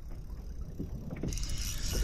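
Wind rumbling on the microphone and choppy water slapping against a kayak hull. A steady high hiss joins in sharply about a second and a half in.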